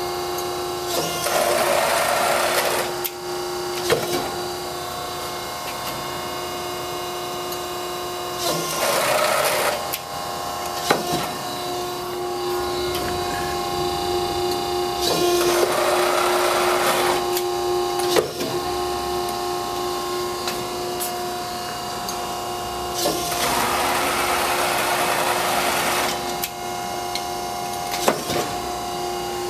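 1986 Wysong Hydra-Mech 20-ton press brake running and cycled four times from its foot pedal: under a steady machine hum, each stroke of the ram brings a rush of noise lasting two to three seconds, followed by a sharp knock.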